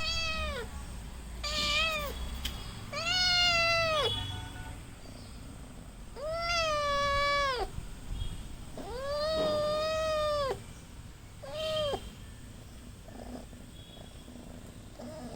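Kitten meowing six times, high-pitched calls a second or two apart, each ending in a downward slide; the longest two run well over a second.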